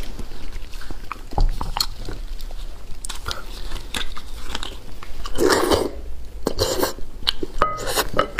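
Close-miked eating of braised beef bone marrow: wet chewing and mouth sounds, with a louder, noisier mouth sound about five and a half seconds in as the marrow is sucked from the bone. Small clicks of gloved hands and a spoon against the bone and plate.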